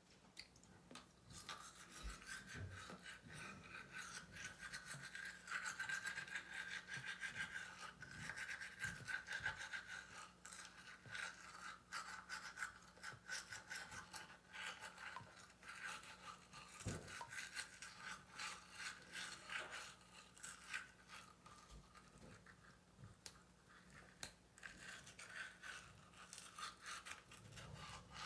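Toothbrush scrubbing teeth: soft, quick, repeated brushing strokes.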